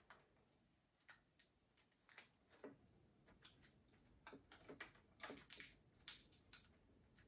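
Near silence with faint, irregular light clicks and taps from hands handling craft materials.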